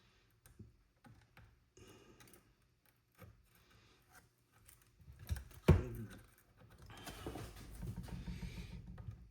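Small clicks and taps of hands and tools working stiff tinned wires onto a terminal inside an amp chassis. One sharp knock comes a little past halfway, then a rustling scrape near the end.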